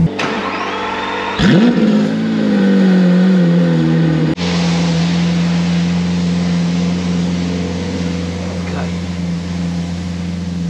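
Lamborghini Aventador LP700-4's V12 engine running just after start-up. It gives a sharp throttle blip about a second and a half in, then the revs fall back and it settles into a steady idle.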